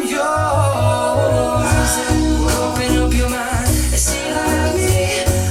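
A pop song with a sung vocal played through Dali Zensor 1 AX wireless bookshelf speakers, with a deep bass line coming in about half a second in.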